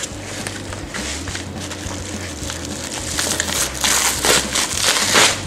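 Padded bubble mailer being handled and torn open by hand: crinkling, crackling paper and bubble wrap, rustling louder in a series of strokes from about three seconds in.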